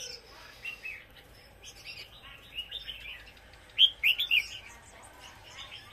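Caged songbirds chirping: a run of short, quick notes that slide up and down, with a louder cluster of sharp chirps about four seconds in.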